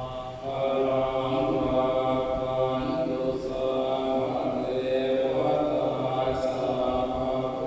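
Theravada Buddhist monks chanting in Pali, a drawn-out chant held on a nearly steady pitch, with a few brief pauses between phrases.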